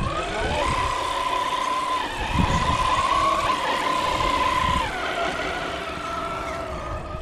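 Radio-controlled scale crawler truck's electric motor and gears whining under throttle. The whine rises in pitch about half a second in, holds steady, then drops to a lower pitch about five seconds in.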